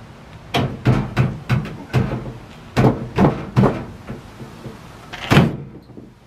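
A run of wooden knocks and thumps, about ten in all, as a painted wooden wall panel is pushed and knocked into a tight fit across a pickup's truck bed; the loudest thump comes about five seconds in.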